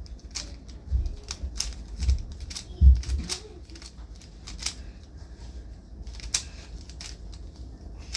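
Plastic clicking of a 3x3 Rubik's cube being turned quickly, irregular clicks a few a second, with a few dull low thumps in the first three seconds.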